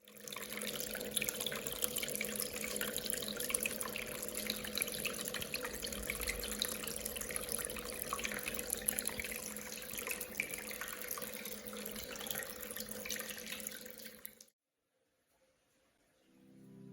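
Running water of a miniature tabletop waterfall: a dense splashing trickle with many small drops and a steady hum under it, cutting off suddenly about three seconds before the end.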